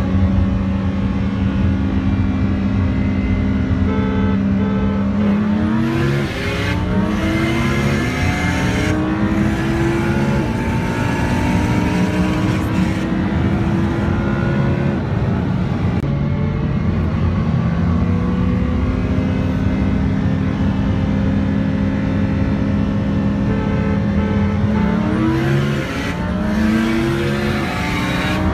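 Engines of a Lamborghini Huracán and a Mitsubishi Lancer Evolution IX in a rolling-start race. The engines hold a steady cruise, then from about five seconds in they accelerate hard, rising in pitch through quick gear changes. Later they settle and hold steady, and a second hard pull with gear changes starts near the end.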